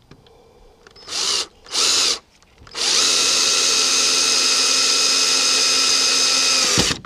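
Power drill: two brief trigger pulls, then a steady run of about four seconds at constant speed that stops sharply, the motor spinning down.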